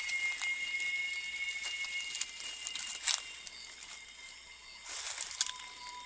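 Forest insects droning in two steady high tones, with brief rustling noises about three and five seconds in; a lower steady tone joins after about five seconds.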